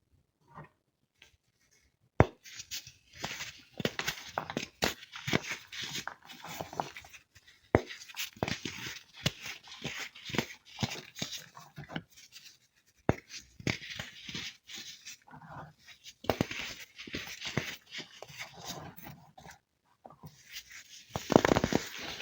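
Crispy baked baking soda being broken and crumbled, a dense run of crisp crunches and crackles that starts about two seconds in, with a few short pauses.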